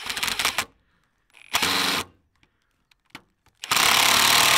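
Ryobi brushless cordless impact driver driving stainless-steel screws through wooden slats into a cast-iron bench frame. It runs in three short bursts. The last burst, starting near the end, is the longest and loudest.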